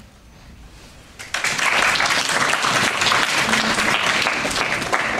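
A small audience applauding, starting suddenly about a second in after a moment of near quiet and keeping up steadily.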